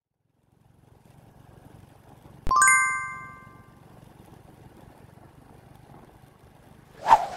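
Faint low hum of a motorcycle on the move, with a single bright metallic ding about two and a half seconds in that rings for about a second, and a short clatter near the end.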